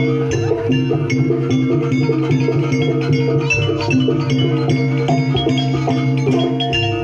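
Live jaranan music: a gamelan-style ensemble of tuned struck percussion and drums playing a dense, steady rhythm over sustained low tones.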